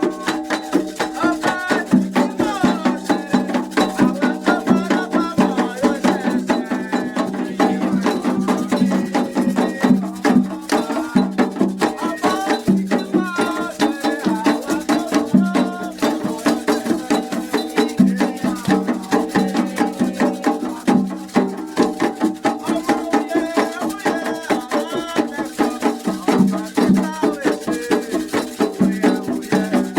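Candomblé ritual music: a percussion ensemble of atabaque drums and shaker rattles playing a fast, steady rhythm, with voices chanting over it.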